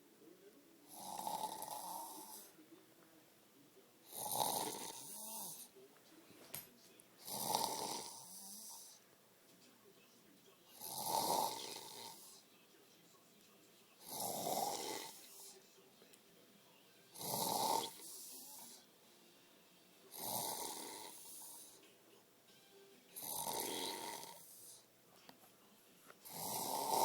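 A sleeping person snoring loudly, with nine long rasping snores about three seconds apart.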